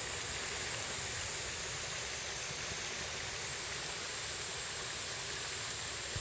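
Small mountain stream running: a steady, even rush of water, with a thin steady high whine above it.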